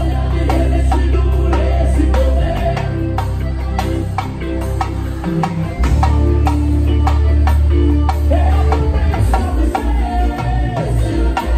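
A band playing live, with electric guitar, a strong bass line and steady drum and percussion beats. Near the end the bass changes from long held notes to short repeated pulses.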